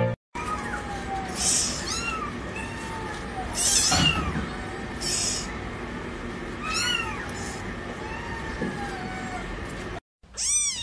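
Small kittens meowing: a series of thin, high meows that rise and fall, a few seconds apart, with short bursts of hissy noise between them. A louder, clearer kitten meow comes near the end.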